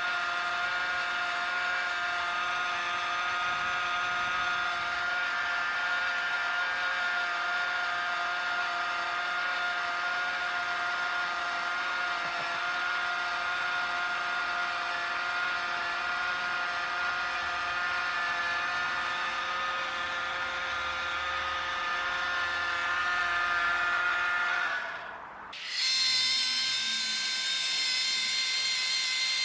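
The small battery-powered electric motor of a toy bubble truck running steadily as a high, even whine while it blows bubbles, freshly repaired and working properly. About 25 seconds in the sound briefly drops away, then carries on at a slightly higher pitch.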